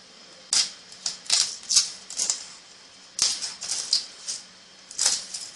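Grilled horseshoe crab shell being pried open: a run of short, sharp crackles and scrapes in uneven clusters as the charred shell is levered apart.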